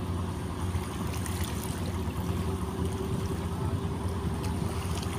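Boat engine running steadily with an even, low drone.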